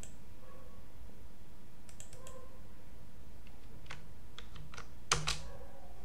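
Irregular clicks of computer keys being pressed: scattered single taps and short clusters over several seconds, the loudest a quick double click about five seconds in, over a steady low background hiss.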